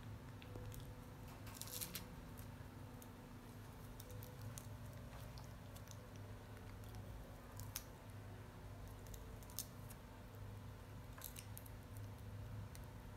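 Faint, scattered crisp clicks and crunches of a baby monkey picking apart and chewing a green lotus seed pod and its seeds, over a steady low hum.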